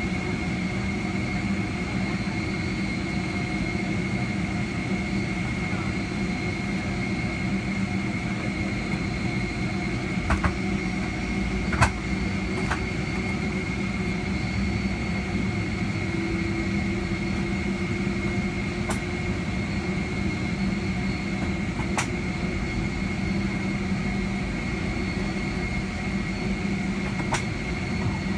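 Steady cabin hum with a constant high whine inside a parked Boeing 757-300 at the gate before pushback, from its ventilation and air-conditioning running with the engines not yet started. A few sharp clicks come through, the loudest about twelve seconds in.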